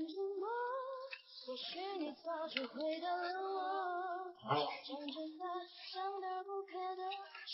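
Background pop song with a high female voice singing a melody.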